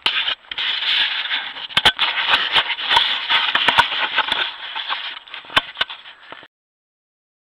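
Handling noise on a Browning Spec Ops Edge trail camera: hands scraping and rubbing on the housing over its built-in microphone, with many sharp clicks and knocks. The sound cuts off suddenly near the end as the recording stops.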